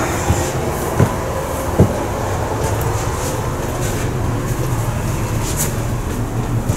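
Footsteps coming down carpeted stairs inside a parked Shinkansen carriage, three dull thuds in the first two seconds, over a steady low rumble of hall ventilation and background hubbub.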